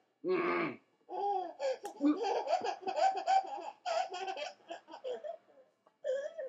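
Toddler laughing hard in a string of short, breathy bursts, with a brief pause about a second in.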